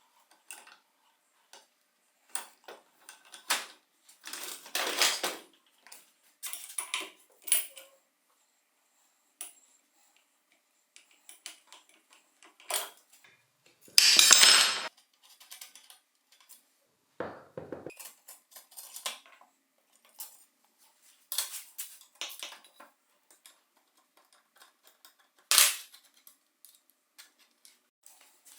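Hand tools and metal bike parts clinking, tapping and scraping in irregular bursts during bike disassembly, with one louder rasping burst lasting about a second near the middle.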